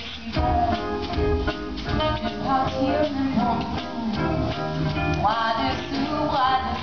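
Live band with a saxophone section, drums and electric guitar playing jazzy swing while a woman sings into a microphone.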